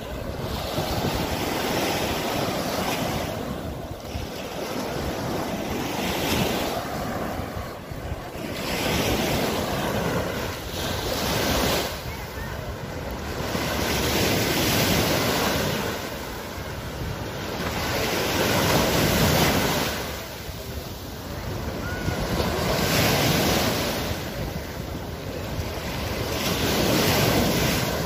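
Small sea waves breaking and washing up the sand at the water's edge, the rush swelling and fading every few seconds.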